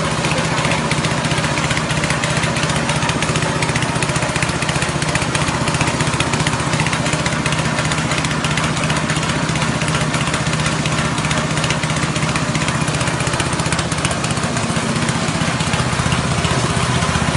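Rice-husk grinding mill driven by its 6.5 HP single-cylinder petrol engine, running steadily while grinding husks into fine bran: a continuous engine drone with the rushing noise of the milling over it.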